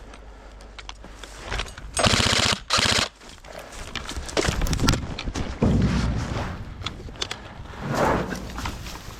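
Airsoft gun firing two rapid full-auto bursts about two seconds in, the second one shorter, amid scattered knocks and rustling.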